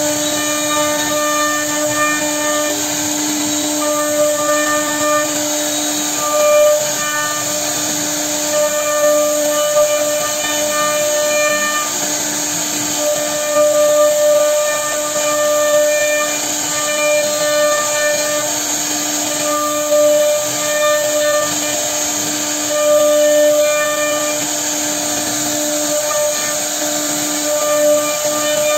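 CNC router spindle cutting a relief pattern into a wooden door panel: a steady whine over the hiss of the bit in the wood, its higher tones coming and going as the cut moves on.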